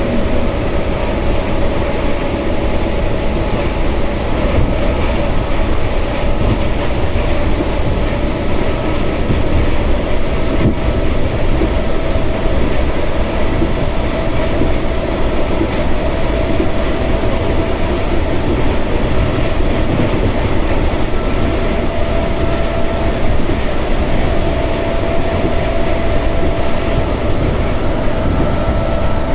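Passenger train running at speed, heard from inside the carriage: a steady rumble and clatter of the wheels on the rails, with a steady hum held throughout.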